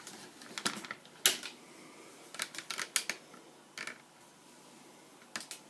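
Irregular sharp plastic clicks and knocks from handling a 1/6 scale action figure and setting it down on a diorama shelf piece, the loudest knock about a second in and a quick cluster of clicks around the middle.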